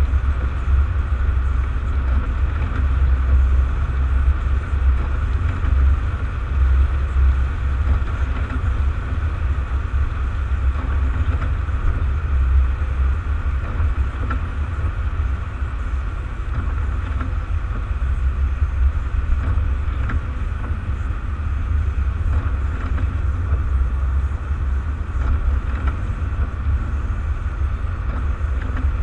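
Steady low rumble of a car driving on a wet highway in the rain, heard from inside the cabin.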